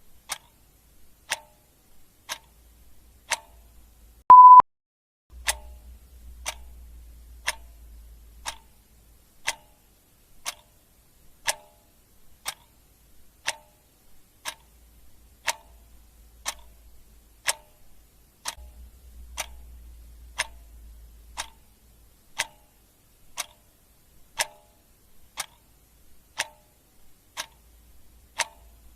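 Clock ticking sound effect, a sharp tick about once a second. A single short, high beep sounds about four seconds in, louder than the ticks.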